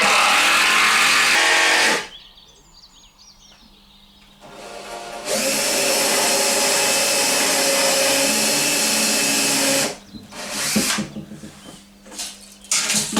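Power drill driving screws into 2x4 wood: a steady run of about two seconds, then a longer run of about five seconds that winds up at the start, followed by a few short bursts near the end.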